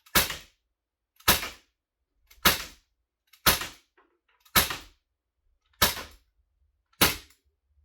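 Crosman CM9B Mako CO2 BB pistol fired seven times, about a shot a second, each a sharp crack that dies away quickly.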